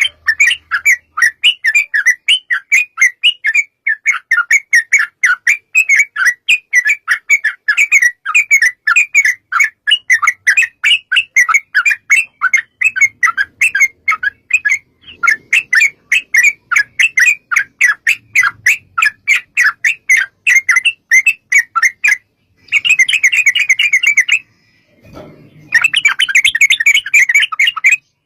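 Yellow-vented bulbul (trucukan) singing a long, fast run of loud chattering notes, several a second. Near the end it breaks into two denser, buzzier bursts with short pauses between them.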